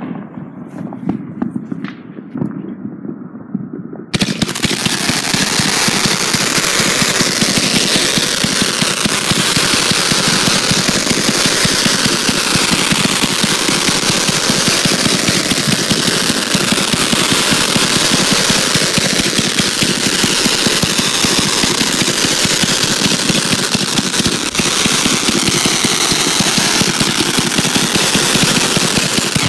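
Consumer fireworks crackling: a few scattered pops, then about four seconds in a sudden, dense, rapid crackle of many small pops that keeps going without a break.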